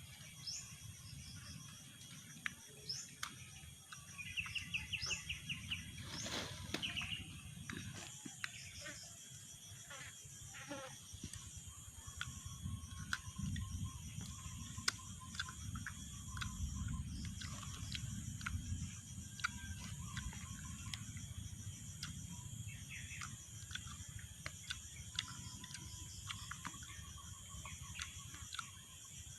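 Insects drone steadily in a high, continuous band, with a few short bird chirps and a brief trill in the first several seconds. Scattered faint clicks and a low rumble run underneath.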